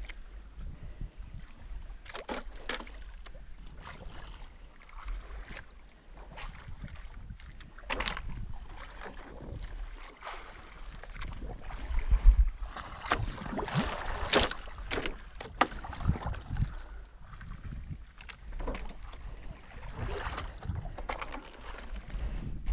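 Wind on the microphone and water against the hull of a small outrigger fishing boat, with scattered knocks of gear being handled aboard. There is a louder burst of noise for a couple of seconds around the middle.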